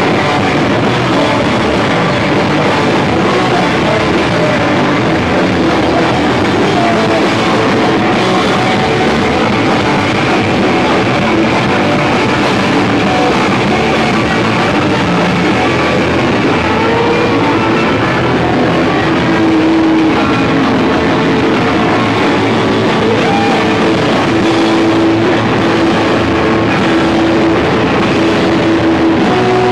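Punk rock band playing a song live, with loud electric guitar over the full band. The music runs dense and steady without a break.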